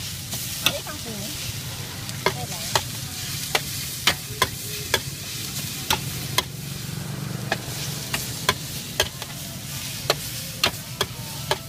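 Noodles sizzling on a hot flat pan while a metal spatula stirs them, striking the pan in sharp, irregular clacks about once or twice a second over a low steady hum.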